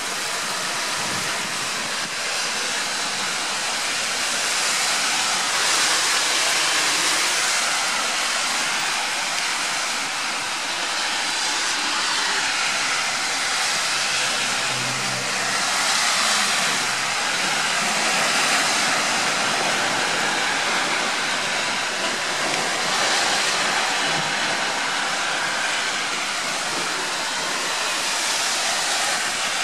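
Heavy rain pouring down: a steady, dense hiss that swells and eases slightly every few seconds.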